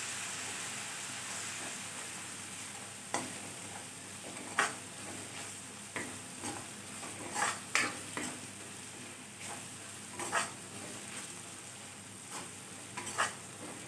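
Onion-tomato masala with ground spices sizzling in oil in a kadhai, a steady hiss, while a ladle stirs it, scraping and clicking against the pan every second or so.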